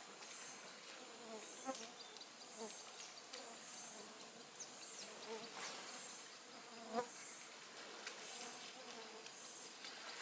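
Flying insects buzzing close by, with short louder passes about a second and a half in and about seven seconds in. Behind them runs a faint forest insect chorus of high pulses repeating roughly once a second.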